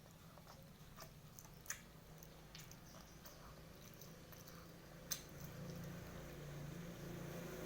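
Faint close-up chewing and eating mouth sounds, with scattered small clicks and two sharper crackles.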